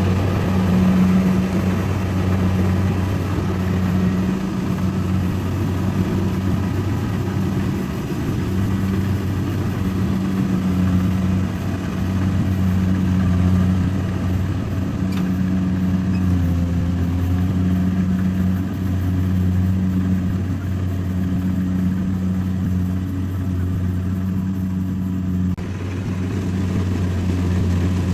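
Rice combine harvester engine running steadily under load, a low drone with a hum that swells and fades about every second and a half.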